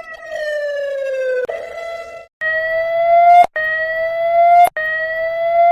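Emergency alert alarm tone. A held tone slides down in pitch and breaks off, then after a short gap a slightly rising tone repeats about once a second, each one ending in a click.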